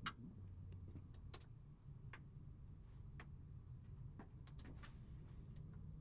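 Faint scattered clicks and light taps of parts being handled, one sharper click at the start, over a low steady hum.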